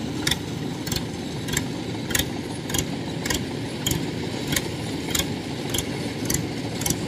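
Rice combine harvester running steadily in the field, its engine drone overlaid by a sharp, regular mechanical clack just under twice a second.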